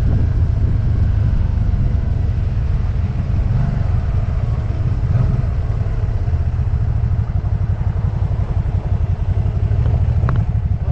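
Motorcycle engine running under way, a steady low rumble with wind. About halfway through, the engine's rapid firing pulses come through more clearly.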